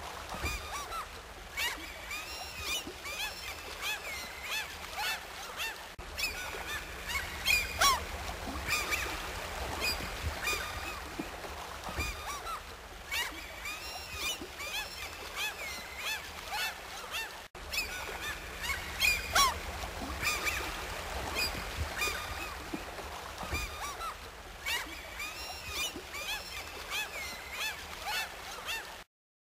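Many birds calling over and over, short overlapping calls over a steady low background noise, with a brief dropout about two-thirds of the way through; the sound cuts off suddenly near the end.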